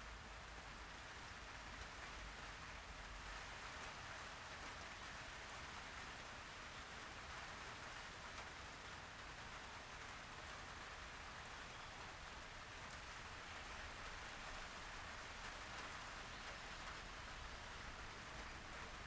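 Faint, steady hiss without breaks.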